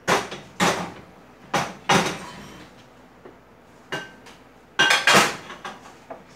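Dishes and cutlery clattering as a plate of food is served up: about seven sharp knocks and clinks, the last two with a brief ring.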